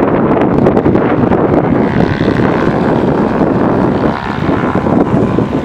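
Gusty wind rumbling on the microphone, with the drone of a Socata TB10's single propeller engine faintly audible as the light aircraft approaches to land.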